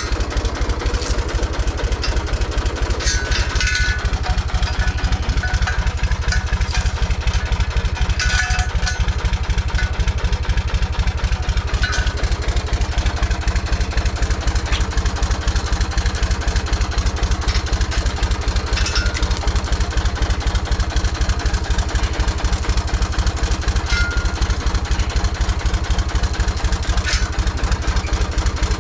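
Tractor engine idling steadily, its firing pulse even throughout, with a few short clinks and knocks over it.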